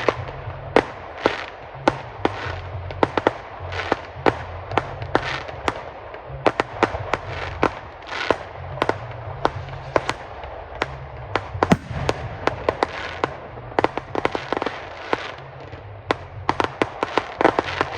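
Fireworks display going off: rapid, irregular sharp bangs and crackles, several a second, coming thickest near the end.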